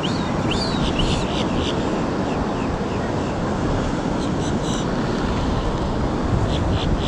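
Steady wind and ocean surf noise on an open fishing pier, with brief high chirps now and then.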